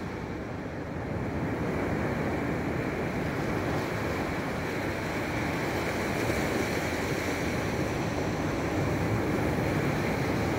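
Ocean surf breaking and washing up a sandy beach, a steady rushing wash, with wind buffeting the microphone.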